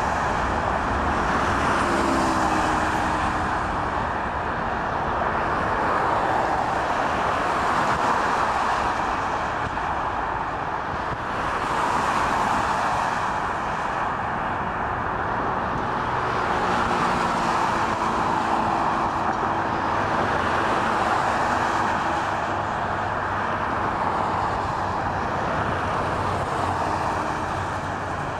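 Steady roar of motor traffic, swelling and fading every few seconds as vehicles go by.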